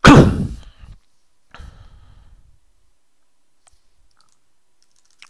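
A loud burst of noise close on the microphone, dying away within about a second, a weaker one at about one and a half seconds, then a few faint clicks.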